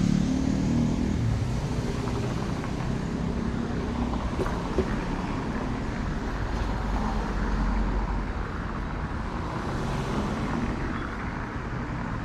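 Street traffic: a motor vehicle's engine runs close by at first and fades over the first couple of seconds, leaving a steady hum of traffic.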